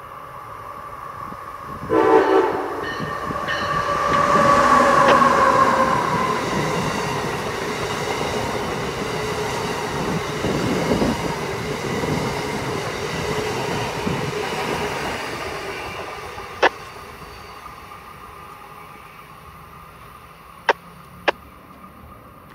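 Amtrak electric passenger train sounding a short horn blast as it closes in, then rushing past with a broad rumble of wheels and cars that slowly fades as it moves away. Three sharp clicks come late, once the train has gone by.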